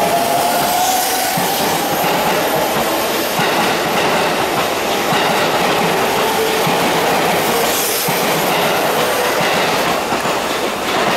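Electric commuter train pulling away along the platform, its motors whining in a slowly rising pitch as it speeds up, over steady wheel and rail noise with a clickety-clack from the wheels.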